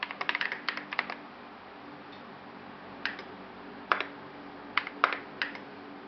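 Keystrokes on a Melody 96 mechanical keyboard with lubed Salmon switches, SA keycaps and a tape and PE foam mod: a quick run of presses in the first second, then a few scattered single and double presses. A steady background hiss underlies them.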